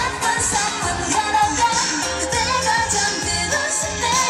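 K-pop girl-group song: female voices singing over a pop backing track with a steady beat.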